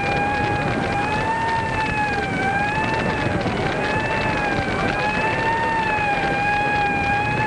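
A siren wailing on one held pitch that wavers gently up and down about every second and a half, over a steady rushing background noise.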